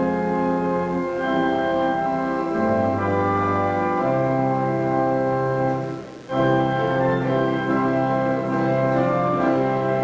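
Church organ and grand piano playing music together, mostly long held chords that change every second or two, with a short break about six seconds in.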